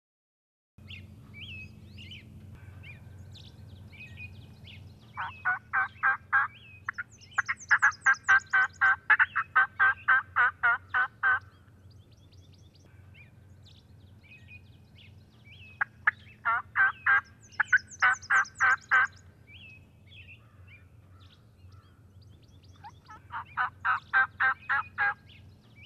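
Turkey yelping: four long runs of evenly paced yelps, about five a second, the first starting about five seconds in. Small songbird chirps fall between the runs, over a faint steady low hum.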